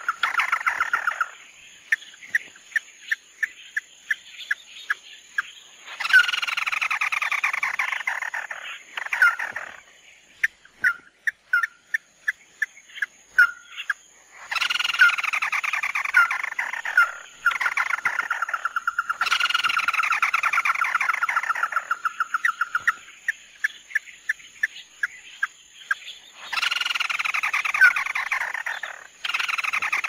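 Crake calling: four bursts of a fast, chattering trill, each lasting two to four seconds. Between the bursts come strings of short, sharp single notes. A faint, steady high-pitched whine runs underneath.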